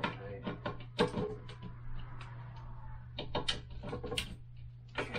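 Sharp clicks and knocks of a toilet seat's plastic hinge and mounting screw being worked by hand, the loudest about a second in and a quicker cluster later, over a low steady hum. The screw has stripped out of its hole and will not tighten.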